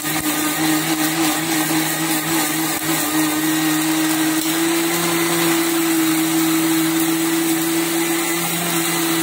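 Panasonic electric mixer grinder running steadily with its steel jar grinding wet green masala paste of coriander, mint, green chillies, garlic and ginger.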